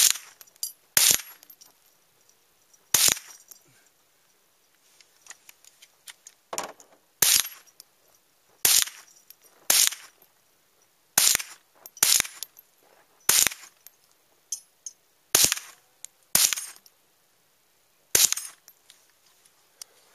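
Marlin Papoose semi-automatic .22 rimfire rifle firing about a dozen single shots at an unhurried, uneven pace, usually a second or two apart, each a sharp crack.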